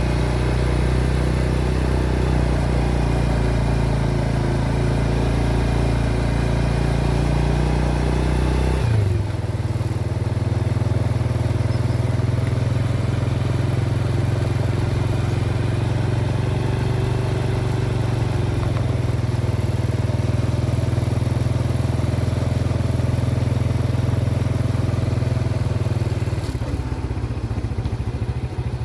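Motorcycle engine running at a steady speed. Its note changes abruptly about nine seconds in and again near the end.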